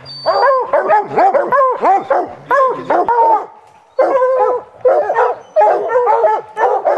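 Bear hounds barking and baying in a rapid, overlapping chorus, with a short lull about three seconds in. They are barking treed at a black bear up the tree.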